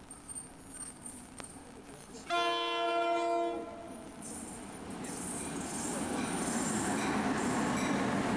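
A train horn sounds one blast of a little over a second, a chord of several notes. Then the noise of a train running past builds up and stays: a rumble with rail and wheel noise.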